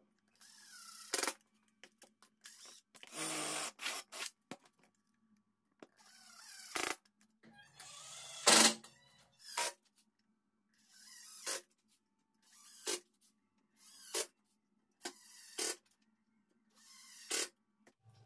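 Cordless impact driver driving screws through metal strips into plywood, in about nine short separate bursts, the loudest about halfway through.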